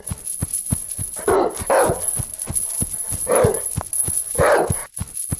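A dog barking four times, two quick barks then two single ones, over a steady rhythmic beat of short ticks and thumps.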